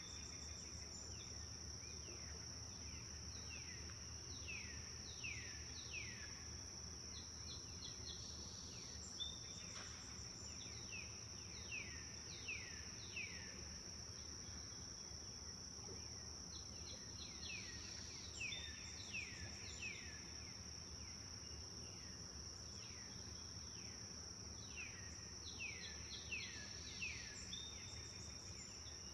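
Forest ambience: a steady, high insect drone runs throughout. Over it, a bird calls in series of three to five quick falling whistled notes, repeated every several seconds, with short higher chirps between them.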